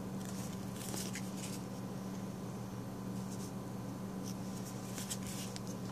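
Magic: The Gathering trading cards sliding against one another as they are flipped in the hand, with a few short, soft swishes in two clusters, near the start and near the end. A steady low hum runs underneath.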